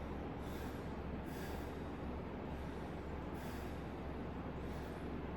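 A man breathing hard, winded after a set of bodyweight dips, with sharp breaths about once a second over a steady low background hum.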